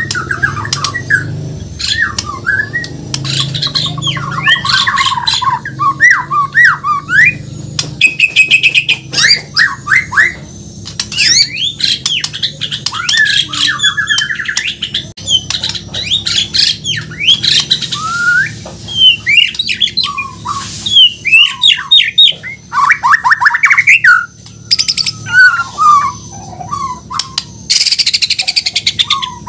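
White-rumped shama (Bornean murai batu) singing a long, varied song of rapid trills, sweeping whistles and harsher chattering notes, phrase after phrase with only short pauses.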